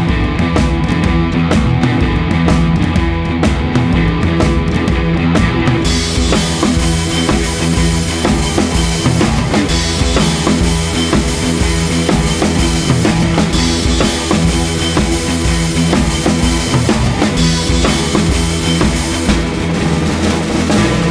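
Rock background music with a steady drum beat; the band gets fuller and brighter about six seconds in.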